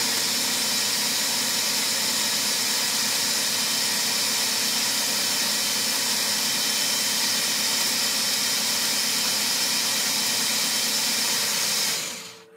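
Food processor running steadily at full speed, blending pesto ingredients into a smooth paste, with a constant motor hum under the whir; it winds down near the end.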